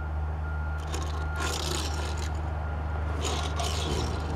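A die-cast Hot Wheels car (1980 El Camino) rolling and sliding across a wooden tabletop, giving short scraping bursts about a second in and again a little past three seconds, over a steady low hum.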